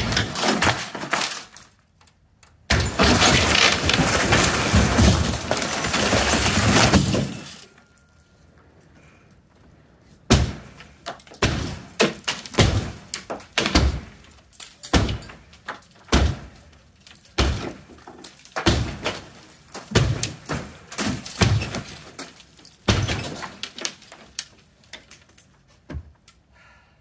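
Sledgehammer blows on a carport roof being demolished: a few hard strikes, then the sheet-metal roofing tearing loose and collapsing in a long, loud crashing clatter for about four seconds, followed by a steady run of sharp sledgehammer strikes, about one a second.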